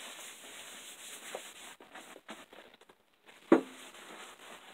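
Faint rubbing and handling noise, with one sharp knock about three and a half seconds in.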